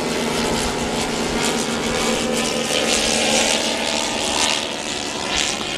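Radio-controlled model airplane's engine and propeller running steadily in flight, with wind buffeting the microphone.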